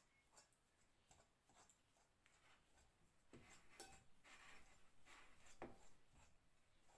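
Faint scraping and tapping of a fork against a ceramic bowl as hard-boiled egg yolks are mashed, the strokes coming more often and a little louder from about halfway through.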